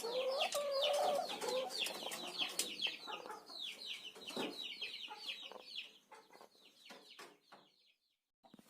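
Chickens calling: a fast run of short, high, falling peeps with lower clucking calls in the first second or two. The peeps thin out in the last few seconds and stop briefly near the end.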